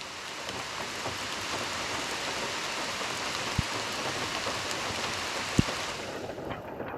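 Heavy rain falling in a steady hiss, with two sharp knocks about two seconds apart, the second louder.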